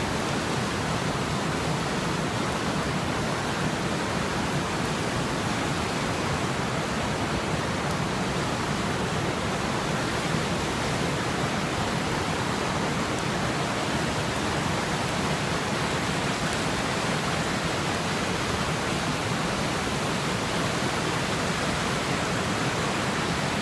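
A river in flood pouring over a concrete dam spillway: a steady rush of falling white water.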